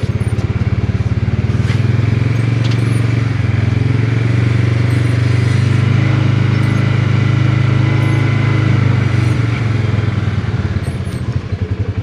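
A small vehicle's engine running steadily while being driven, easing off slightly near the end.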